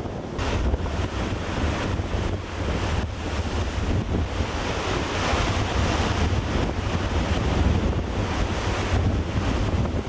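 Heavy storm surf breaking and rushing, a continuous hiss that swells louder about halfway through, with wind buffeting the microphone as a steady low rumble.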